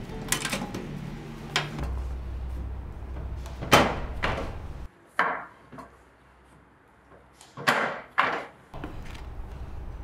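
Metal tongs and a metal baking tray clanking and knocking: a sharp knock about four seconds in and two more near eight seconds, each ringing briefly, over a low hum that stops about five seconds in.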